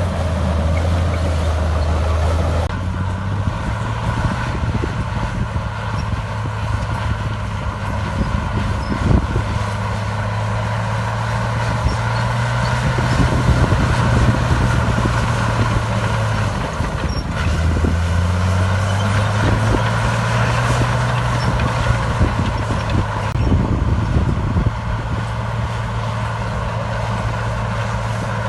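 Diesel engine of heavy earthmoving machinery running under work, its pitch shifting up and down several times as the engine speed changes, with a few brief knocks.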